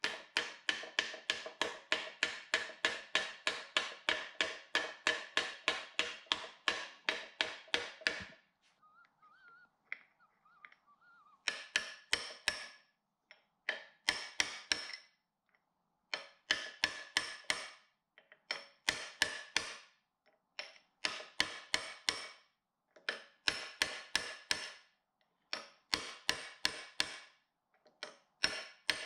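Hammer tapping a steel drift to seat a new seal in a jet ski's intermediate shaft bearing housing, metal on metal with a short ring to each blow. A fast steady run of about four to five taps a second for the first eight seconds, then short bursts of about five taps every couple of seconds.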